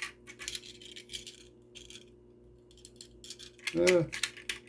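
Light clicks and rattles from a diecast toy car and its plastic packaging being handled, in a quick run at the start and again near the end, with a brief vocal sound from the person about four seconds in.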